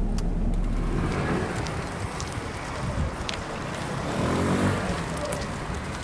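Vehicle on the move, engine and road noise running steadily; the deep low rumble drops away about a second in.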